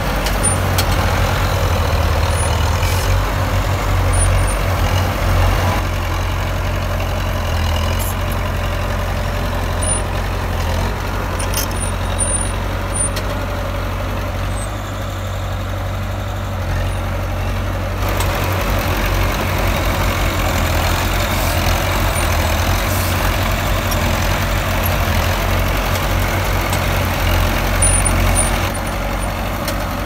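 Diesel engine of heavy earthmoving machinery running steadily, with a deep low rumble underneath.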